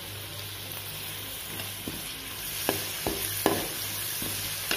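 Chopped tomatoes and onions sizzling in hot oil in a metal pan while a steel spoon stirs them, with a few sharp clicks of the spoon knocking and scraping the pan in the second half.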